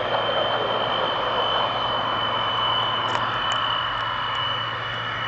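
The twin Rolls-Royce Dart turboprop engines of a Hawker Siddeley Andover C1 running as it taxis: a steady high turbine whine over a broad rushing noise.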